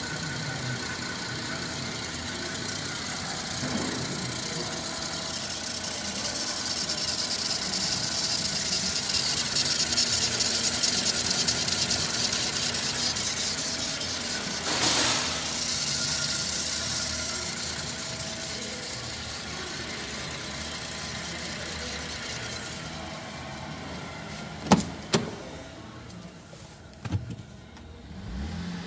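Holden Commodore 3.6-litre V6 idling steadily, heard close over the open engine bay, with 243,920 km on it. From about 23 seconds in it sounds quieter and duller, heard from inside the car, with two sharp knocks a little later.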